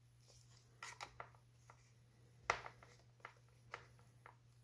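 Light clicks and taps from handling the iPad's glass screen assembly against its aluminium frame: a quick cluster about a second in, the loudest click about halfway through, then a few softer ones about half a second apart.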